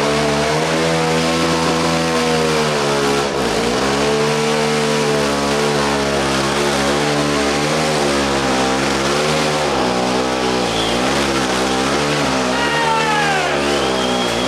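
ATV engine running hard, its pitch wavering up and down with the throttle and dipping sharply once about three seconds in. Near the end a few high sliding tones join it.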